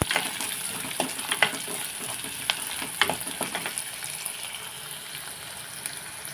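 Chopped onion frying in hot oil in a clay pot, a steady sizzle that fades gradually, with a stirring utensil clicking and scraping against the pot every second or so.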